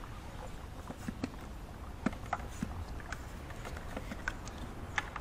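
Scattered light clicks and knocks, irregularly spaced at a few a second, from a hand-pumped plastic oil extractor as it is handled and its pump handle is worked.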